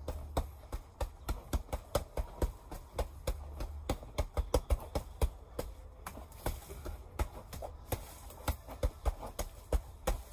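Hands rapidly striking red padded strike pads strapped to a tree trunk as a makeshift Wing Chun wooden dummy: a quick, uneven run of slapping hits, several a second, over a steady low rumble.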